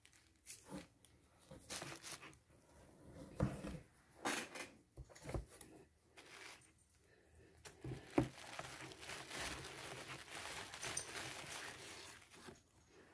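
Brown paper produce bags rustling and crinkling, with scattered light knocks of vegetables being moved about, then a longer stretch of steady paper rustling from about eight seconds in.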